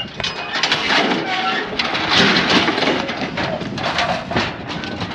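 Steel cattle squeeze chute being opened with its lever to release a heifer: repeated metal clanging and rattling of the gates and bars.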